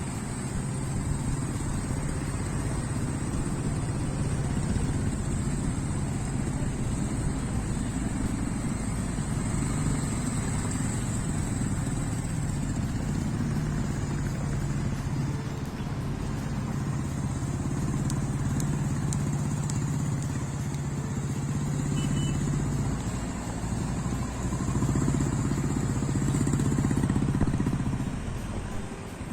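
Motor vehicle engine running steadily with a low hum and some road and wind noise, dropping away near the end.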